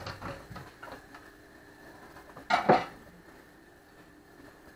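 Ceramic dinner plate knocking against other crockery as it is taken from a kitchen cupboard: a few light knocks, then one loud sharp clink about halfway through.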